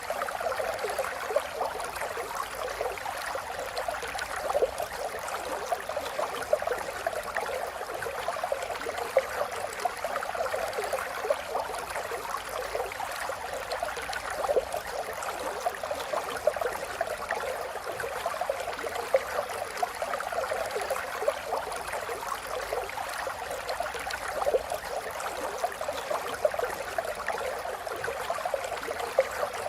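River water flowing over stones, a steady babbling with many small splashes and gurgles.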